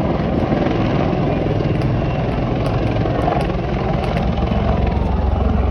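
A pair of Royal Navy AW159 Wildcat helicopters flying a display, a steady noise of helicopter rotors and engines.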